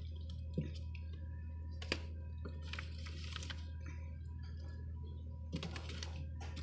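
Light clicks, knocks and rustling of items being handled in an open refrigerator, over a steady low hum, with a sharper knock at the very end.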